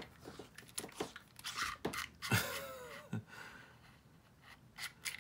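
Hands unscrewing the threaded metal body sections of a paintball high-pressure regulator: scattered small clicks, scrapes and handling noises of the parts turning and knocking together.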